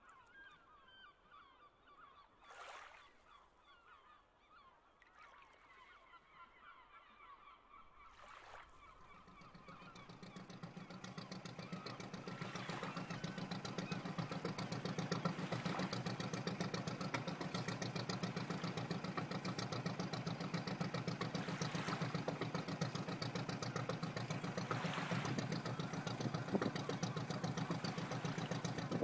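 Faint honking calls, then from about nine seconds a steady low engine-like rumble with a fast pulse fades in and holds.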